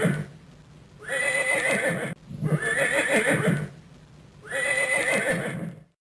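Horse neighing: the same whinny recording repeated about four times, each a quavering call of just over a second with short gaps between.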